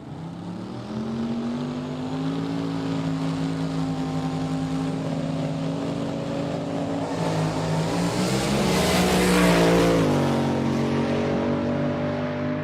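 A car engine running at a steady speed, growing louder as it approaches and passing close about ten seconds in with a clear drop in pitch, then slowly fading away.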